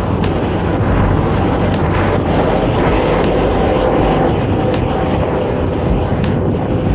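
Steady rush of wind on the microphone mixed with the running of city traffic engines while riding a bicycle, with a faint steady hum in the middle.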